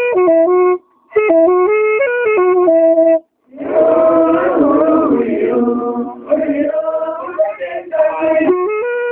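Diola song: a melody of short stepped notes, broken by two brief pauses about one and three seconds in, with singing voices filling a few seconds in the middle.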